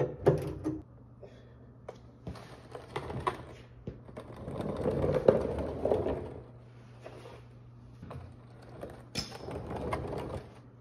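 Ratchet clicks and small metal clanks of a hand tool on the oil drain plug of a Ford 6.9L diesel's oil pan, then engine oil splashing into a plastic drain pan for a couple of seconds. More clicks and clanks come near the end.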